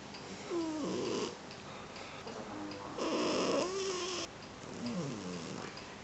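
Sleeping domestic cat snoring loudly: three snores about two seconds apart, each with a whistling tone that slides down in pitch, the one about three seconds in the loudest.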